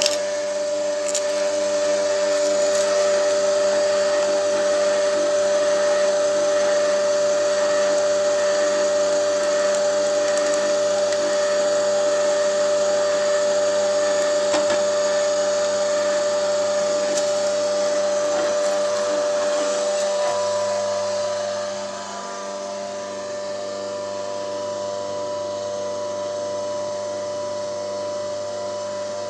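Electric YMC household screw oil press running steadily with a motor hum and whirr, left running on after the almonds have all been fed through so the last oil drains out. About two-thirds of the way through the sound drops somewhat and a higher steady whine comes in.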